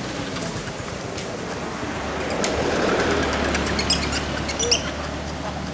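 Steady outdoor background rumble that swells for about a second midway, with a low hum underneath and a few short high chirps in the second half.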